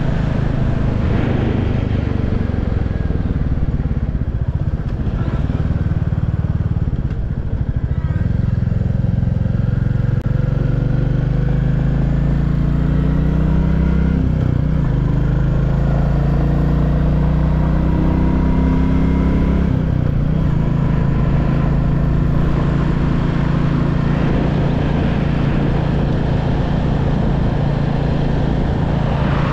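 Royal Enfield Classic 350's single-cylinder engine and stock exhaust running steadily while ridden, the engine note climbing and dropping back several times.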